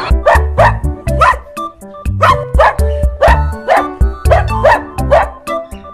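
Upbeat background music with a heavy, steady beat and short dog barks repeated in time with it.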